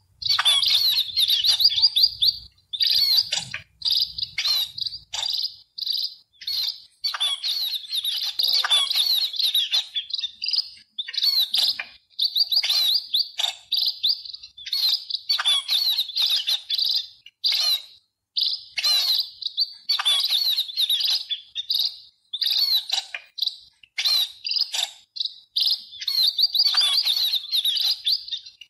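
Sparrows chirping in a busy chatter: many short, quick calls overlapping, broken by brief pauses every second or two.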